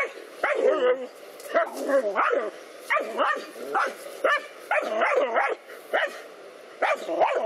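Dogs barking and yelping in a rapid run of sharp barks with two short pauses, agitated barking at a snake they are confronting.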